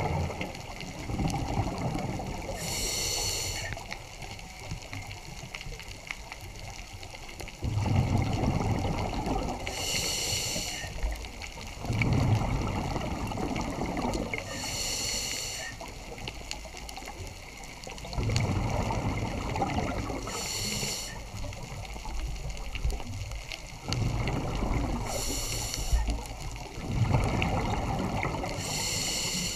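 Scuba diver's own breathing through a regulator, heard underwater: about every five seconds a short hissing inhale, then a longer bubbling exhale, six breaths in all.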